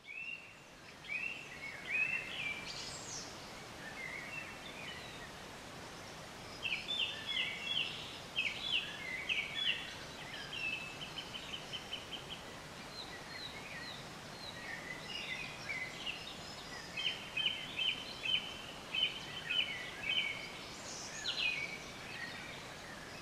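Wild birds calling and singing: scattered short whistles and chirps, with two longer runs of quick repeated notes, one about a third of the way in and one past the middle, over a faint steady hiss.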